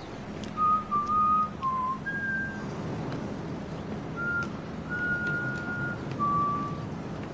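A person whistling a slow tune in about seven long, clean notes, with a pause in the middle. A low steady hum and faint ticks run underneath.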